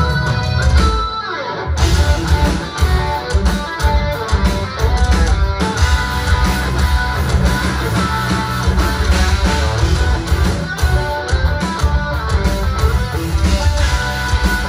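Live instrumental progressive metal from a full band: electric guitars, bass guitar and drums. About a second in the low end drops out briefly under a falling slide in pitch, then the whole band comes back in.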